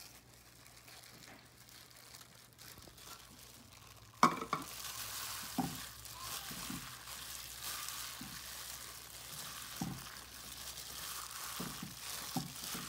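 Plastic-gloved hands squishing and kneading wet minced-pork and vegetable dumpling filling in a glass bowl, the gloves crinkling. About four seconds in there is one sharp knock, and then a steady crackly rustle with soft thumps as the hands work the mix.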